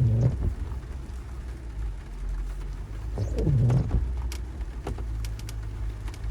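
Off-road vehicle engine running with a steady low rumble while crawling, with two short low sounds that bend in pitch, one at the start and one about three and a half seconds in, and a few sharp clicks near the end.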